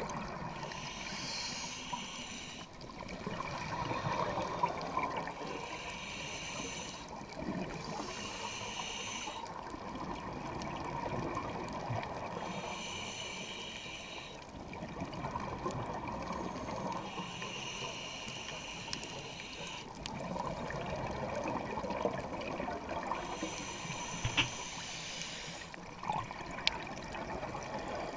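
Scuba diver breathing through a regulator, heard underwater: exhaled bubbles gurgle and hiss in repeated bursts every few seconds, over a steady underwater rush.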